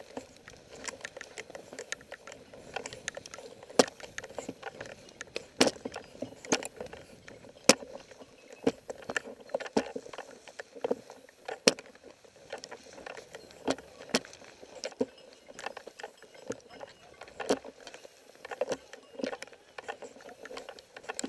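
Irregular knocks, clicks and rustling close to the microphone, with a sharp knock about once a second, like handling or movement noise.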